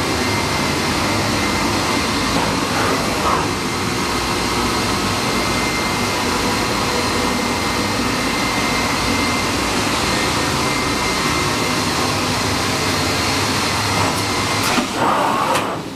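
WEEKE Optimat BP 140 CNC machining centre running: a steady rushing noise with a thin, high, steady whine, and a few faint clicks near the end.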